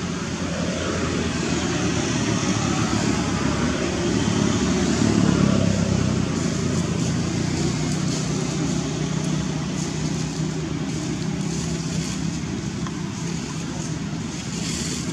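Steady motor-vehicle engine hum, swelling about five seconds in.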